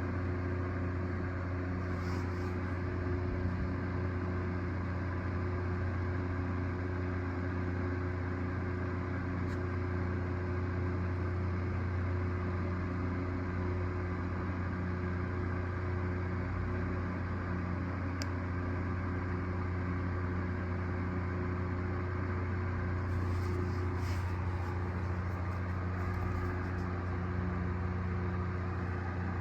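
Steady low mechanical hum that holds the same level and pitch throughout, with a few faint clicks now and then.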